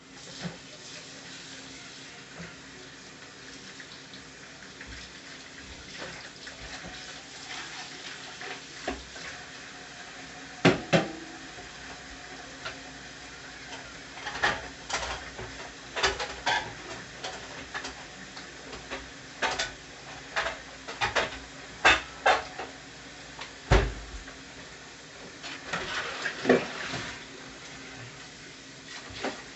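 Kitchen clatter: metal pots, pans and utensils clinking and knocking at irregular intervals over a steady hiss, with one heavier, dull knock about three quarters of the way through.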